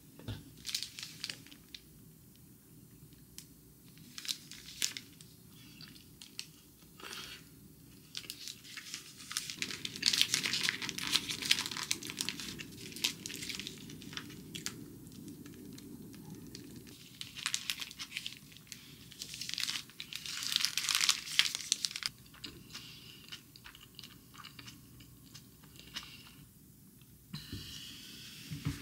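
Brown paper wrapped around a tortilla wrap crinkling and tearing as it is handled and peeled back, in several bursts; the loudest come about ten seconds in and again about two-thirds of the way through.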